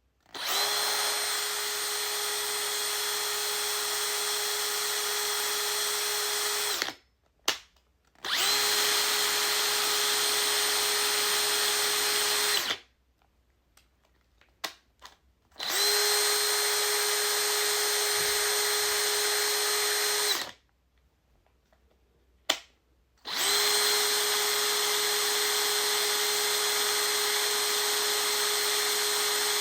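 Power drill running in four long bursts of several seconds each, every one spinning up quickly to a steady whine and winding down when released. Short blips of the trigger come in the gaps between bursts.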